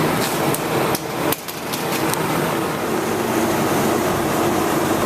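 Several sharp metallic taps and clicks in the first two seconds, over the steady hum of a running refrigeration unit.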